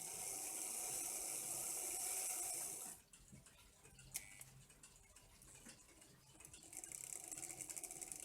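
Märklin 3000 model locomotive running on track, a steady whirring buzz from its motor and wheels. About three seconds in it falls quiet, a single click follows, and the whirring starts again near the end.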